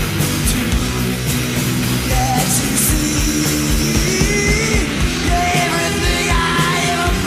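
Loud noise-rock band playing a studio session recording: distorted electric guitars over driving drums.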